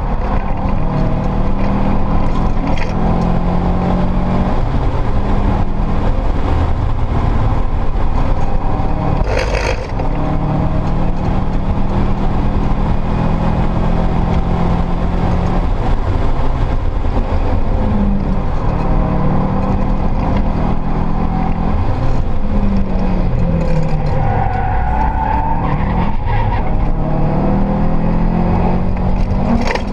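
Subaru Impreza WRX STI's built, turbocharged EJ flat-four engine heard from inside the cabin, running hard around the track. There is a short dip about ten seconds in, and in the second half the engine pitch falls and rises again several times as the revs change.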